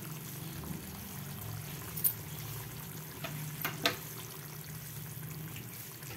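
Chicken curry bubbling gently in its pot after the stove has been turned off, with a few sharp pops about two and four seconds in, over a low steady hum.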